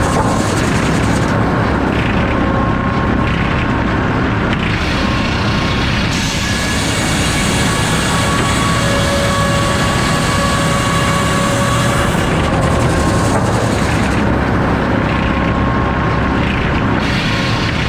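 Circular sawmill with F-pattern inserted-tooth saws running, a loud steady machine noise with faint whining tones that come and go.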